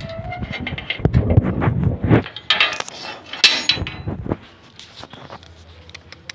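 A door being opened, with metallic clanking and rattling from its fittings, loudest from about two and a half to four seconds in, then a few lighter clicks.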